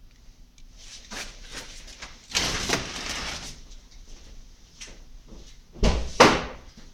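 A car door being handled: a scraping rush of about a second, then a heavy slam some three seconds later.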